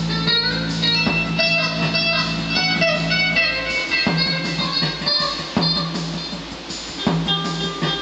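Tokai TST 56 HSS Stratocaster-style electric guitar picked in single notes through a Fender G-DEC modelling amp on a spacey delay patch, the notes ringing on in echoes. Under it a backing track holds a steady low note with a few drum hits.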